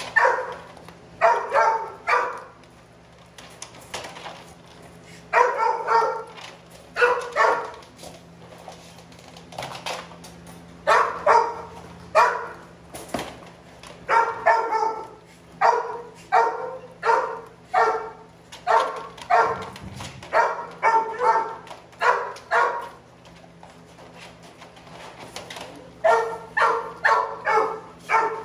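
Dog barking in bursts of three to six barks, with pauses of a second or more between bursts.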